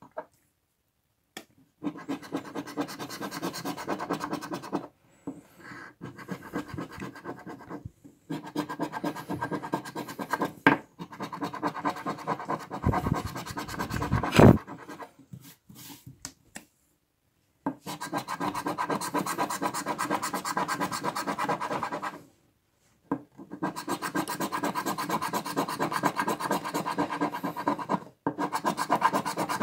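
A coin scraping the scratch-off coating from a Millionnaire scratch ticket in runs of quick back-and-forth strokes, with short pauses between runs. One louder rub or knock comes about fourteen seconds in.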